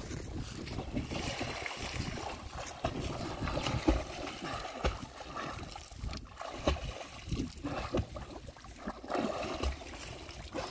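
Pond water splashing and sloshing around a swimming man, in irregular strokes, with the sharpest splash about four seconds in.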